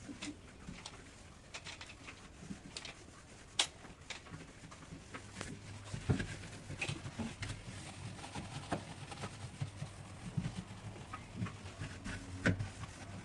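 Irregular light clicks and taps of objects being handled, with a low steady hum coming in about six seconds in.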